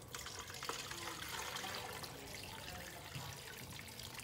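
Dark herbal brew poured steadily from a nonstick pan through a metal strainer into a pot, the liquid trickling and pouring.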